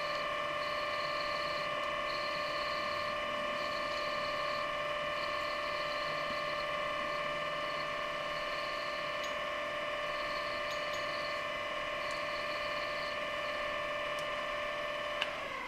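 Mini lathe running at steady speed with an even motor whine while it turns a small brass piece, with a faint higher hiss that comes and goes about once a second. About fifteen seconds in there is a click and the whine falls in pitch as the lathe is switched off and spins down.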